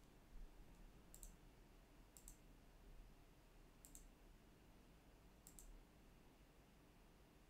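Four faint computer-mouse button clicks at uneven gaps of a second or more, each a quick press-and-release pair, over near-silent room tone.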